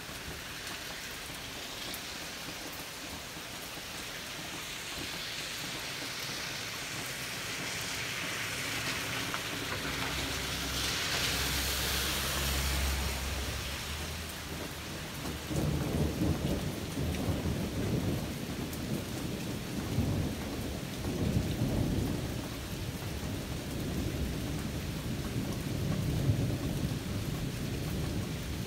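Steady rain with thunder. A low rumble builds toward the middle, and from about halfway the thunder rolls on in uneven low waves.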